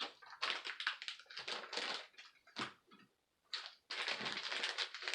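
Hands sorting through plastic push-fit plumbing fittings: a run of irregular rustles and clicks, with a short pause a little after three seconds in.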